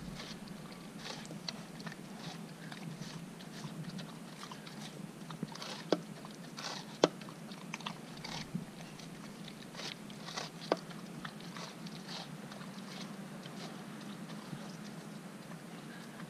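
Siberian Husky puppy biting and chewing watermelon flesh: irregular wet crunching and smacking, with a few sharper crunches about six, seven and ten and a half seconds in, over a faint steady low hum.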